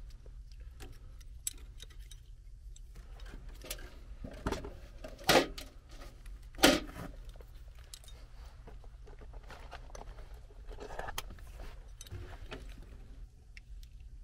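Handling noise from small metal hardware: light clinks and rattles of a hot surface ignitor mounting bracket and screw, with two louder knocks about five and seven seconds in. A steady low hum runs underneath.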